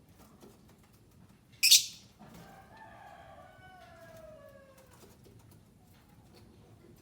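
A single short, loud, shrill bird screech, typical of a lovebird, followed by a rooster crowing, a drawn-out call of about three seconds that falls in pitch at the end and is fainter than the screech.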